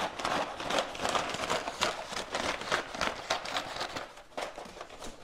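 Grey packing paper crinkling and rustling in quick irregular crackles as it is wrapped around a glass candle to pad it, easing off near the end.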